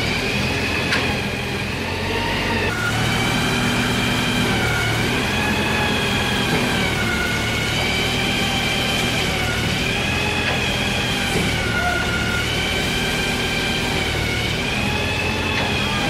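A motor running steadily: a low hum under a higher whine that wavers slowly up and down in pitch, dipping briefly about two seconds in.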